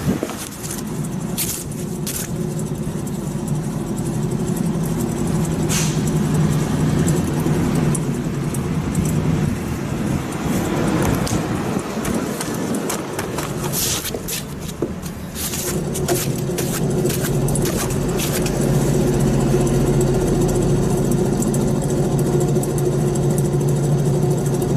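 Daihatsu Tanto on the move, with a low droning 'gooo' abnormal noise over the road noise that grows louder as it goes, easing briefly about halfway through before coming back stronger. A few light clicks sound here and there.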